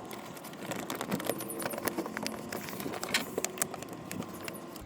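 Irregular light clicks and rustling of hands working inside a car door: wiring being fed back through and a plastic sheet being pressed back into place.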